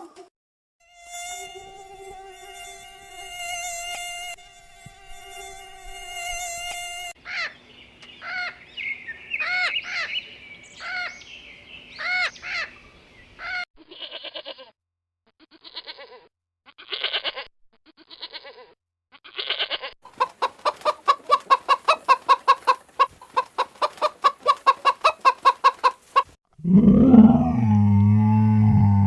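A string of different animal calls, one clip after another: a steady buzzing drone, then a run of repeated rising-and-falling calls, then short pulsed calls and a fast rapid pulsing, ending near the end with a loud, deep growl.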